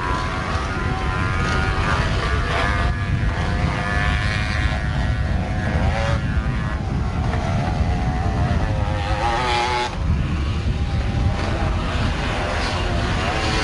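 Sport quad (ATV) engine revving, its pitch rising and falling repeatedly as the throttle is worked, with a short drop in level about ten seconds in.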